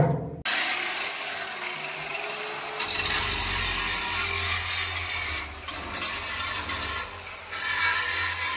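Large angle grinder switched on. Its motor spins up to a high whine about half a second in, then it grinds welded-on wire mesh off a steel wall with a harsh, steady grinding noise, the whine sagging slightly now and then as the disc bears down.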